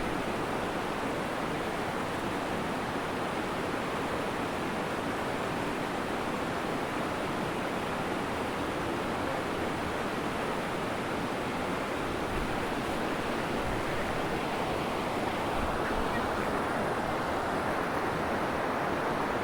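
Steady rushing of flowing water, an even noise without breaks.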